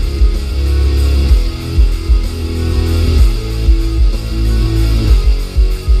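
Music played loud through a car stereo, with a Rockford Fosgate T1S1-12 12-inch subwoofer putting out heavy, held bass notes under the guitar. It is recorded inside the car's cabin on a camera microphone that turns down the very high volume.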